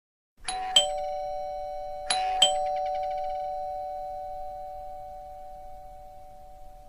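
Two-tone ding-dong doorbell chime rung twice: each press strikes a higher note then a lower one, and both notes ring on and fade slowly.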